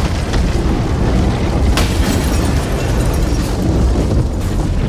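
Explosion sound effect for an animated fireball: a loud, continuous rumbling boom, with a sharp crack about two seconds in.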